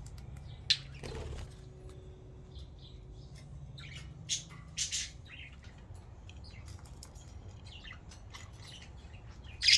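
Pet budgerigars chirping: short, scattered calls every second or two, the loudest right at the end, over a faint steady low hum.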